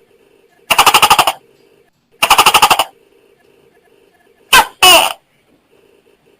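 Tokay gecko calling: two rapid pulsing syllables a little over a second apart, then a short double 'to-kek' call about two seconds later.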